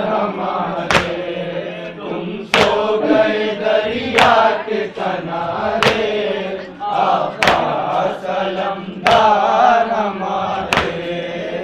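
Crowd of men chanting a noha lament in unison, with sharp hand slaps of matam (chest-beating) landing together about every second and a half, seven times.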